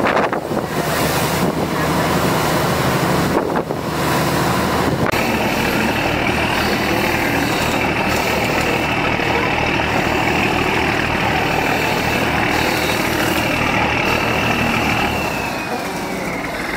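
River tourist boat's engine running: for the first few seconds the boat is underway with water rushing past the hull, then, after about five seconds, the engine idles at the pier as a regular low throb with a steady high whine that slides lower near the end.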